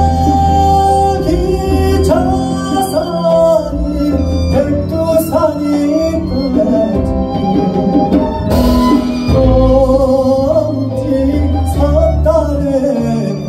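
Male Korean traditional singer (sorikkun) singing into a microphone over a live band, with a double bass playing underneath.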